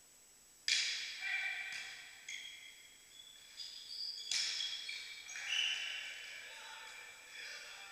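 Volleyball rally on an indoor court: the ball is struck sharply about a second in and again near the middle, with sneakers squeaking on the sports-hall floor in between, all echoing in the hall.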